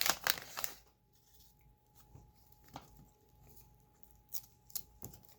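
Plastic card-pack wrapper crinkling briefly, then a few soft clicks and rustles of trading cards being handled.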